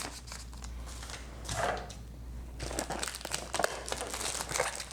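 Plastic packaging crinkling and rustling in irregular bursts as a shipping box is unwrapped by hand, with a short pause a little past the middle.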